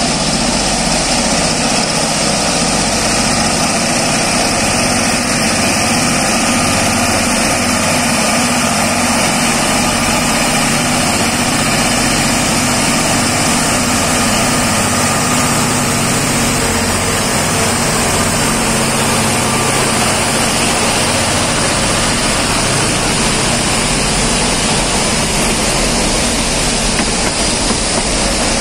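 Freight train hauled by G22UB diesel-electric locomotives passing close by. The locomotives' diesel engines run loud and steady, and after they go past the freight wagons roll by on the rails.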